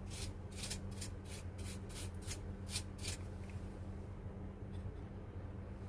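Small brush swept in quick strokes over a typewriter's membrane key panel, about three strokes a second, brushing out dust that keeps the keys from registering. The strokes stop about three seconds in, leaving a low steady hum.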